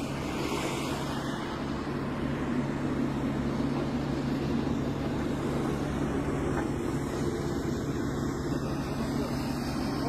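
Steady low drone of an engine running, with a constant low hum and no change in pitch.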